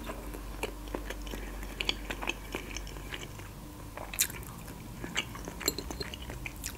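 A person chewing soft avocado slices: wet mouth sounds with scattered small clicks and smacks, the sharpest about four seconds in.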